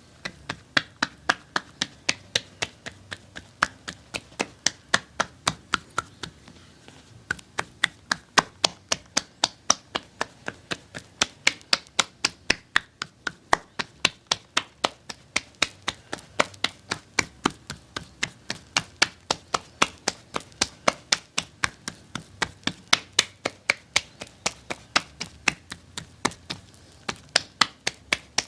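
Percussive massage tapping: sharp, quick strikes at an even pace of about three a second, with a short pause about six seconds in.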